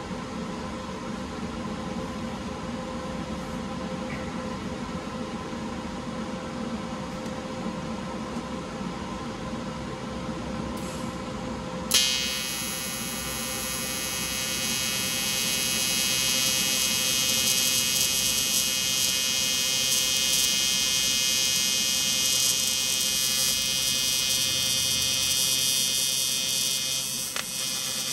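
A steady electrical hum, then about twelve seconds in a sharp crack as a TIG welder's arc strikes. The arc then buzzes steadily with a dense, high whine, dipping briefly near the end, while the charge pipe is tack-welded.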